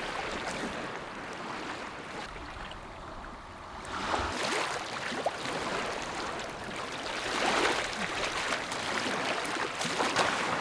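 Lake Superior waves washing up onto the beach: a steady wash of water that grows louder about four seconds in, with surges every few seconds as waves come in.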